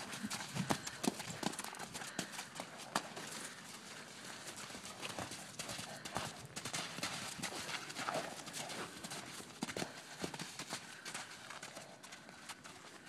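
Hoofbeats of horses trotting and cantering on a packed-dirt paddock: many irregular dull thuds.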